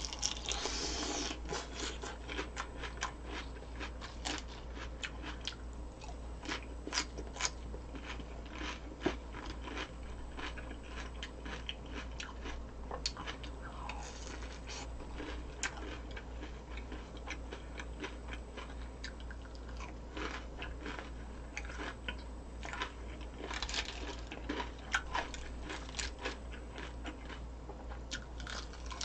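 A person chewing and crunching food close to the microphone: many small crisp crunches and bites, uneven, over a steady low hum.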